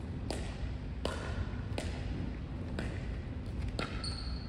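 Irregular sharp knocks of pickleballs, about one a second, echoing in a large hall over a low steady rumble, with a brief high squeak near the end.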